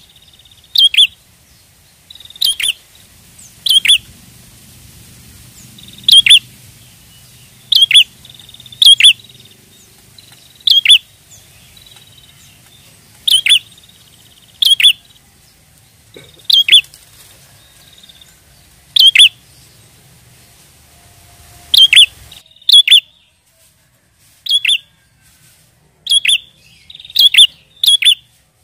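Prinia (prenjak) calling: loud, sharp, short chirps, often in pairs, repeated every second or two, played as a lure to draw other prinias. A faint low hum runs underneath and stops shortly before the end.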